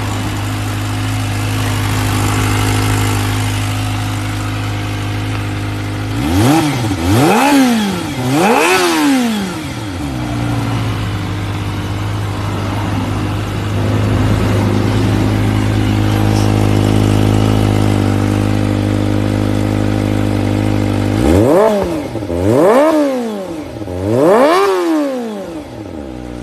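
Vehicle engine idling steadily through its exhaust (knalpot), blipped in short revs: a cluster of two or three quick rises and falls in pitch about six seconds in, and another cluster of three near the end.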